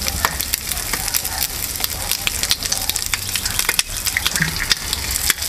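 Diced bacon sizzling and spitting in a small frying pan over an alcohol burner, with a sharp crack about four seconds in as an egg is broken into the pan.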